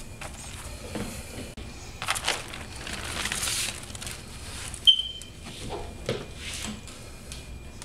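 Plastic bubble wrap rustling and crinkling as it is handled and peeled away from wet acrylic paint on a canvas. A brief, sharp high squeak about five seconds in is the loudest sound.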